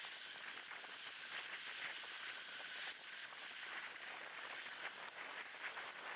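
Small wind-driven waves breaking and washing up a shingle beach, mixed with wind noise, as a steady rushing wash. The audio has been run through noise reduction and a high-pass filter, so it sounds thin with almost no low end.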